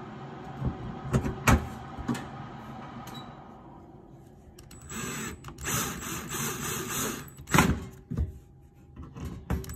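Cordless drill driving screws into a stainless-steel gas cooktop around a burner, tightening them one by one. The drill motor whirs in spells, loudest from about five to seven and a half seconds in. Sharp clicks and knocks come as the bit meets the screws.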